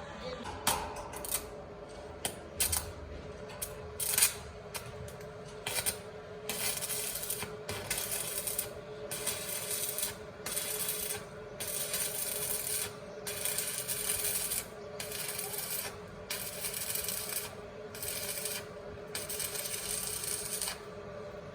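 Stick (arc) welding rod being struck again and again on iron grillwork: a few sharp clicks, then repeated crackling, hissing bursts about a second long with short gaps, over a faint steady hum. The arc will not hold: the welder gives current but the rod won't run.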